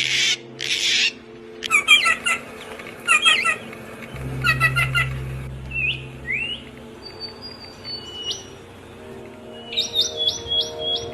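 Several birds chirping and calling. There are two harsh, noisy calls at the start, then three quick repeated chirp phrases, a couple of short rising calls and thin whistles. A fast run of notes comes near the end.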